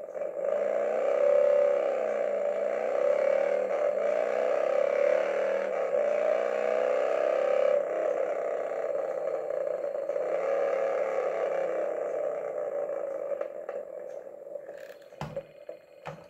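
Ringer of a 2003 Harley-Davidson Fat Boy novelty landline phone playing a recorded motorcycle engine revving through its small speaker, fading out over the last few seconds. Two sharp clicks come near the end.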